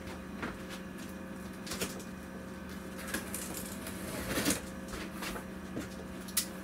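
A knife slitting the packing tape on a cardboard box, with scattered taps and rustles of the box being handled. There is a louder scrape about four and a half seconds in and a sharp click near the end, over a steady low hum.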